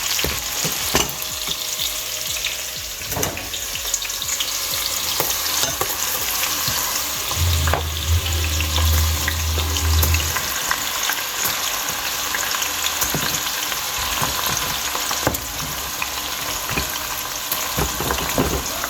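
Pieces of goat meat frying in hot vegetable oil: a steady, dense sizzle with scattered sharp pops and crackles. A low hum joins in for a few seconds around the middle.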